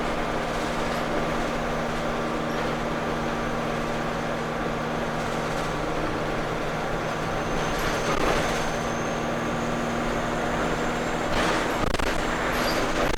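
ADL Enviro 200 single-deck bus running steadily, its diesel engine humming under road and body noise, with a faint high turbo whine for a few seconds in the middle and a few knocks near the end.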